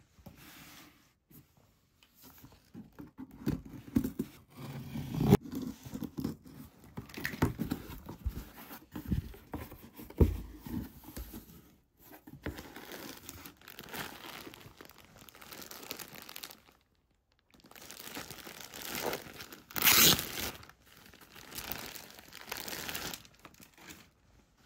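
Cardboard shipping box being opened by hand: packing tape ripping and cardboard flaps knocking and scraping, then plastic wrapping crinkling and tearing as a folded bath mat is pulled out. The loudest rip comes about twenty seconds in.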